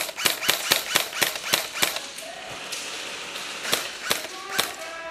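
Airsoft rifle firing a quick string of single shots, about four a second, then three more shots near the end. A voice calls out in the last second.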